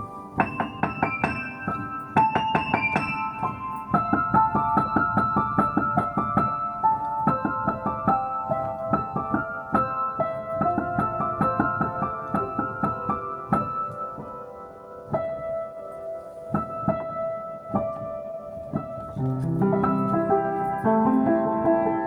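Piano music: a run of melody notes struck one after another, softer for a few seconds past the middle, with lower notes coming in near the end.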